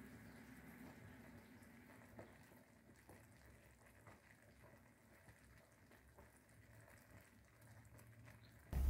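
Very faint bubbling of peach halves boiling in sugar syrup, with a few soft pops, barely above silence. Near the end a louder steady background noise cuts in.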